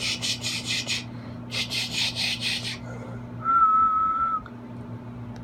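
Two runs of quick rhythmic scratching strokes, about six a second, then a person whistling one steady note for about a second at the puppies, the loudest sound here.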